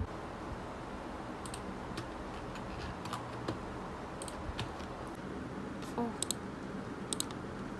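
Typing on a computer keyboard: irregular, scattered key clicks, some in quick pairs, over a steady low background hum.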